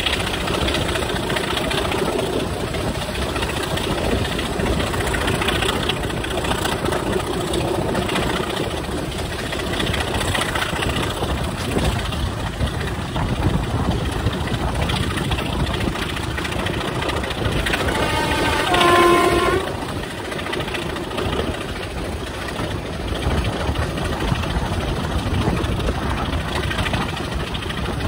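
Steady running noise of a train hauled by a Class 25 diesel locomotive with a Sulzer six-cylinder engine, heard at an open carriage window: engine, wheels on the rails and rushing air. About two-thirds of the way through, the locomotive's horn sounds once, briefly, for about a second and a half.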